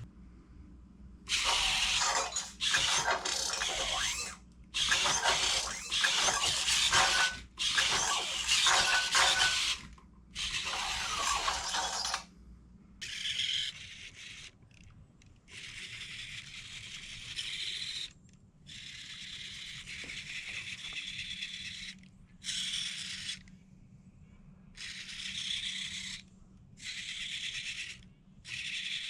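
Robosen Optimus Prime robot toy moving or converting, its servo motors whirring and grinding in a string of short bursts that stop and start. The bursts are louder over the first twelve seconds or so, then quieter and higher-pitched.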